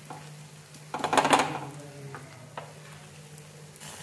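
Spoon spreading chickpea-flour dhirde batter on a hot tava: light scraping and sizzling, with a louder short scrape about a second in.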